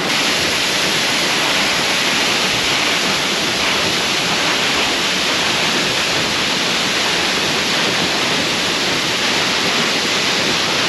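Beehive Falls waterfall running full with rain, a steady rush of water splashing off the rocks.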